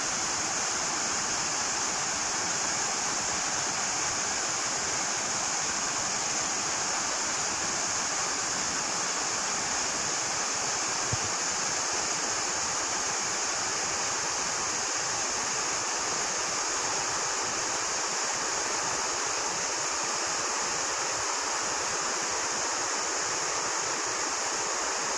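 River in spate after rain pouring over a stone weir: a steady, even rush of falling water.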